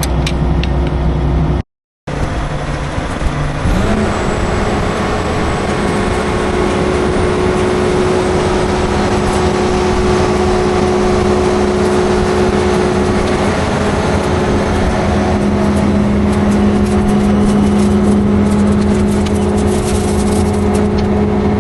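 Combine harvester running: a steady, loud engine-and-machinery hum that rises a little in pitch about four seconds in, then holds, after a brief break in the sound near the start.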